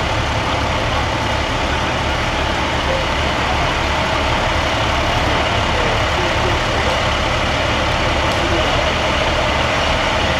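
Diesel engine of an International fire rescue truck running at a low, steady idle as the truck creeps slowly forward.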